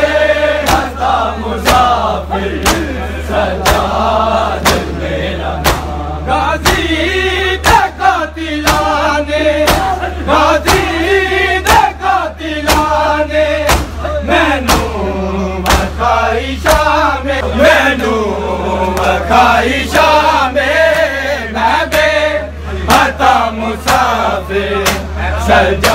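Crowd of men chanting a noha in unison, with loud rhythmic chest-beating (matam) slaps keeping time at about one and a half beats a second, over a steady low electrical hum.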